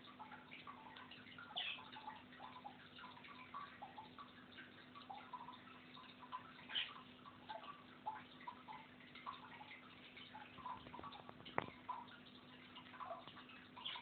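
Alexandrine parakeet nibbling a peeled banana: faint, irregular small beak ticks and clicks, with one sharper click near the end, over a low steady hum.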